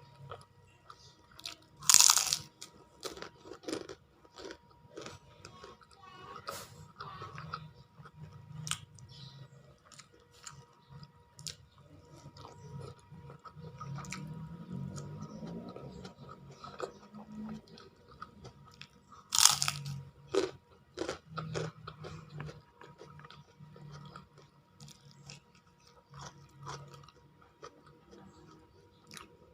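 A person eating close to the microphone: crisp crunching bites and steady chewing, with two loud crunches, one about two seconds in and one about two-thirds of the way through.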